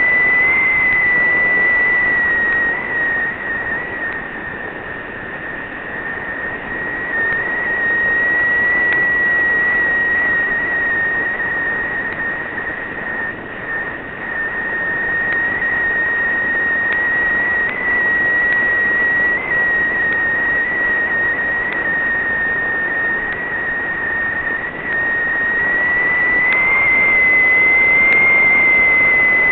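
Steady high-pitched whine that wavers slightly in pitch, over a rushing wind noise on a small camera carried aloft, swelling and fading in loudness.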